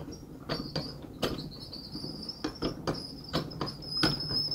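Truck camper lift mechanism being hand-cranked down: irregular clicks and knocks from its ratchet, several a second, with no squeal or grinding now that it has been cleaned of rust and re-greased. A thin, steady high tone sounds faintly underneath.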